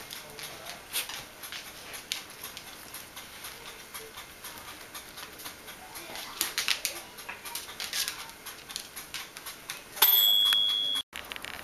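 Bichon Frisé dogs and puppies moving about on a tiled floor, their claws clicking and scuffling, with soft dog sounds. About ten seconds in, a loud, steady, high beep lasts about a second and cuts off abruptly.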